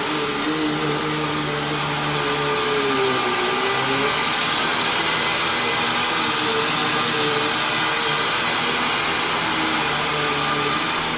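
Hoover WindTunnel Lite upright vacuum cleaner running steadily: motor whine over airflow hiss, its lower hum dipping briefly in pitch about three seconds in.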